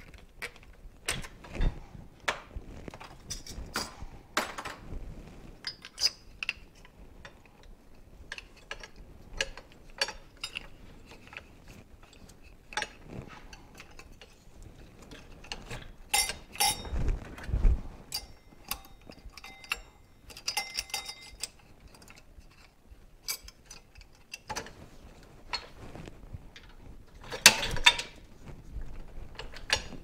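Metal clicks, clinks and knocks from hand work on a motorcycle coil-spring shock absorber clamped in a bench vise as it is put back together. The clicks come irregularly, with louder clusters about halfway through, one with a low thud, and again near the end.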